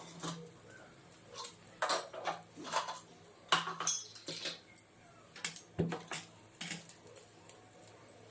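Metal kitchen utensils clinking and knocking against pots and dishes in a string of irregular clatters, most of them from about two seconds in.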